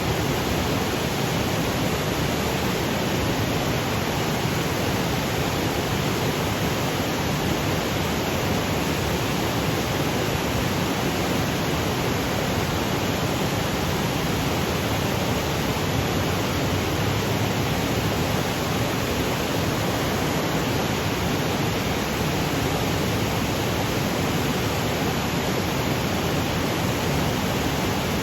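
Waterfall cascading over granite boulders: a steady, even rush of falling water with no breaks.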